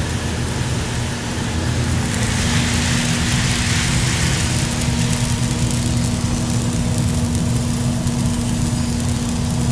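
Probat G75 coffee roaster running with a steady motor and fan hum. A hissing rattle of roasted coffee beans swells about two seconds in and eases off a few seconds later, as the beans spill into the cooling tray and are churned by its stirring arms.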